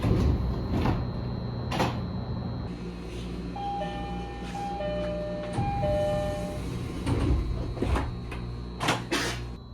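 E131 series train doors: a two-tone door chime (a higher tone, then a lower one) repeats a few times from about three and a half seconds in. Around it come the swish and knock of the sliding doors moving, near the start and again in the last few seconds, over a steady low hum from the train.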